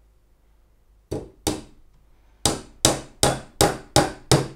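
Hammer driving a 1.5-inch nail into the corner joint of a wooden beehive roof wall. It starts with two light taps to start the nail, then after a short pause comes a steady run of about six harder blows, roughly two and a half a second.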